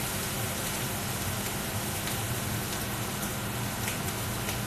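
Steady sizzling from a hot griddle pan frying tortillas for quesadillas, hot enough that they are burning, over a steady low hum.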